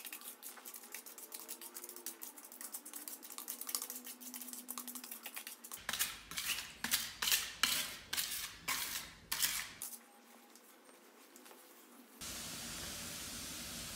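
Repeated scraping strokes of a small spreader working wet grout across glazed floor tiles and into the joints, louder and sharper from about six seconds in. A steady hiss takes over near the end.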